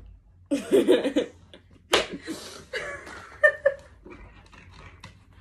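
Young women laughing in short bursts, with a single sharp smack about two seconds in.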